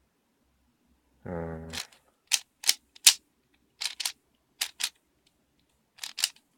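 Dayan Zhanchi 3x3 speed cube being turned by hand: about nine sharp plastic clacks of its layers, singly and in quick pairs. A brief hummed note comes just before the first turn.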